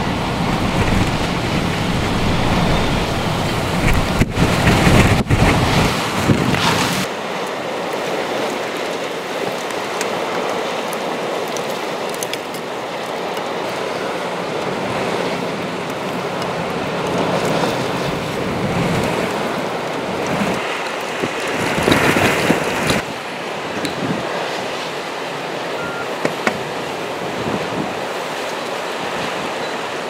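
Storm waves surging and breaking against a concrete seawall in gale-force wind. For the first several seconds heavy wind buffets the microphone with a deep rumble, which then drops away, leaving a steady wash of surf with one louder surge about two-thirds of the way through.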